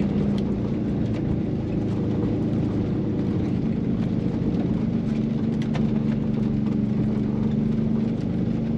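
Volkswagen Vanagon Syncro engine running steadily under load, heard from inside the cabin while climbing a soft, icy track, with a few faint clicks and rattles over it.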